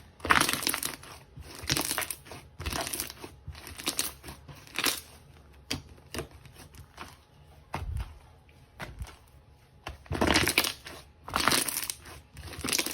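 Slime being squeezed and pressed by hand, crackling in irregular bursts roughly a second apart, with a quieter stretch in the middle.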